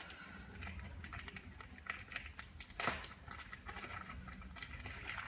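Faint handling noise: scattered small clicks and rustling as things are moved about, with one louder click about three seconds in.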